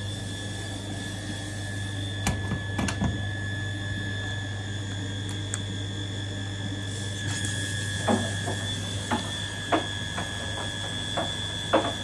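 Washing machine mechanism clicking irregularly over a steady low hum and a faint high whine: two sharp clicks a few seconds in, then a run of clicks every half-second to second from about two-thirds of the way through.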